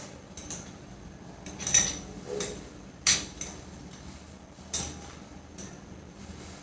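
A spanner clinking and tapping against the metal nut and spindle of a Bosch angle grinder as the nut is loosened and taken off. It makes a few separate sharp clinks, the loudest about three seconds in.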